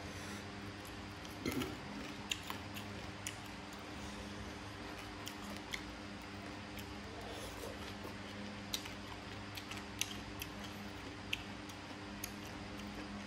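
Eating sounds: scattered light clicks and taps of chopsticks against a metal tray, about a dozen over several seconds, over a steady low hum.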